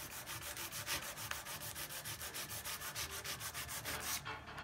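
Sandpaper rubbed by hand along a wooden window frame in quick back-and-forth strokes, several a second, stopping shortly before the end. It is sanding a knot filler repair flush with the wood.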